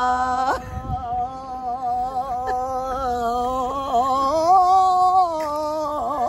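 A voice singing long, drawn-out notes that waver in pitch, stepping up to a higher note about halfway through and dropping again near the end.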